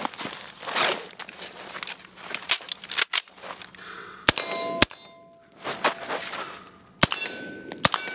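Suppressed 8-inch .223 AR pistol with a Surefire SOCOM Mini suppressor firing four shots in two quick pairs, about halfway through and near the end, each shot followed by the ring of a struck steel target. Before the shots, rustling and scuffing as the gun is pulled from the backpack.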